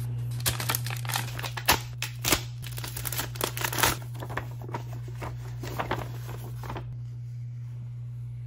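A folded paper letter being unfolded and smoothed by hand: a run of crinkles and rustles, thickest in the first four seconds and thinning out after, over a steady low hum.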